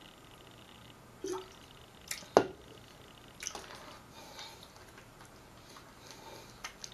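Swallowing a drink of water from an insulated water bottle, then a few short clicks and knocks as the bottle is handled and set down. The loudest is a single sharp knock about two and a half seconds in.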